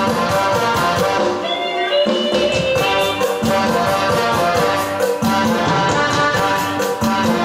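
Instrumental break of a Thai song's backing track played over a PA system: a steady drum beat under a melody with no singing.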